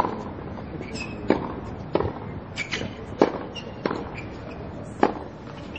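Tennis practice rally: about six sharp pops of tennis balls struck by rackets and bouncing on the court, roughly one a second.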